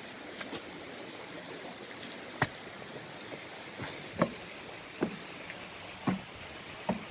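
A stream rushing steadily, with footsteps at a walking pace over it: a handful of sharp steps, roughly one a second, from a couple of seconds in.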